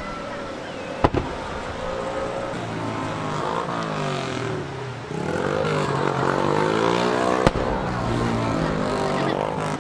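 Fireworks shells going off: two sharp bangs about six and a half seconds apart, with a steady rushing sound between them that swells and shifts up and down in pitch.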